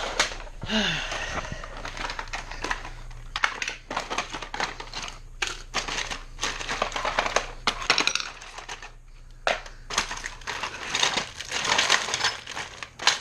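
Rummaging through a cluttered drawer: small objects clattering, clicking and rustling against each other in irregular bursts.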